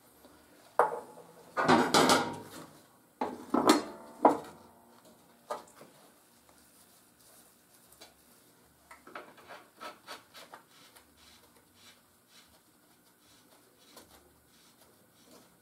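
Steel lawn mower blade and spindle washers clanking against the deck spindle as they are fitted by hand: a few loud metal clanks in the first four seconds, then lighter clinks and scrapes.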